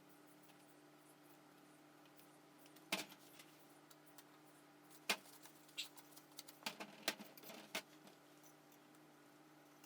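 Scattered light clicks and taps of small parts being handled: one sharp click about three seconds in, then a run of quicker taps in the second half. A steady faint hum sits underneath.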